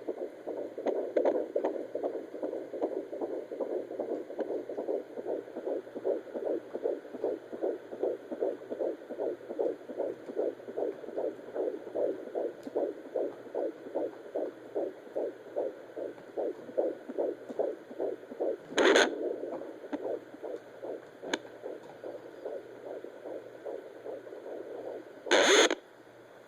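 Fetal heartbeat through a handheld Doppler monitor's speaker: a fast, even pulse of about two to three beats a second. It fades after about 18 s, and two loud, brief scraping bursts, near 19 s and 25 s, come from the probe being moved on the belly to find the heartbeat again.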